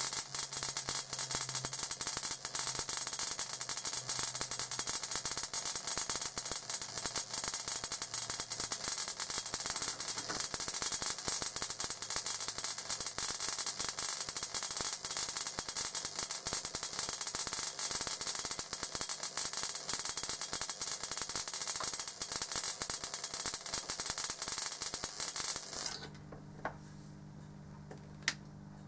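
High-voltage electrical discharges crackling rapidly and densely inside a modified 200-watt incandescent bulb fed by a Leyden-jar capacitor bank. The crackle cuts off suddenly near the end, leaving a faint hum and two small clicks.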